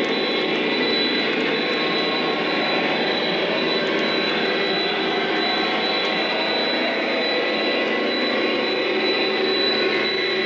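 O scale model passenger train running along the track: a steady rolling rumble of wheels on rails with a thin, constant high whine.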